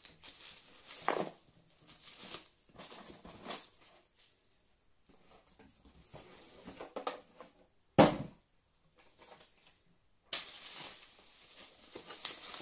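Bubble wrap and a cardboard box being handled: intermittent rustling and crinkling, with a single sharp knock about eight seconds in. Steady crinkling of bubble wrap starts near the end.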